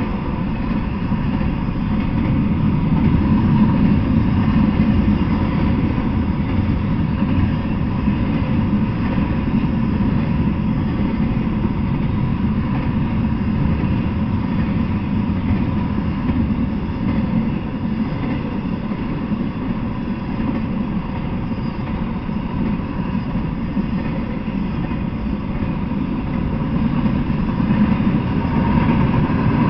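Intermodal freight train of double-stack container well cars rolling past: a steady rumble of steel wheels on the rails that goes on without a break.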